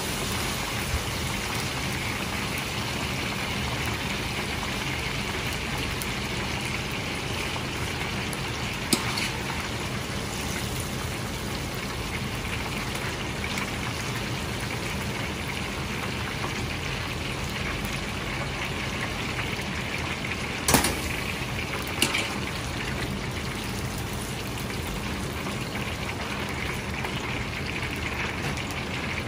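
Breaded chicken pieces deep-frying in a wok of hot oil, giving a steady sizzling bubble. A few sharp metal clinks come through it, the loudest about two-thirds of the way in.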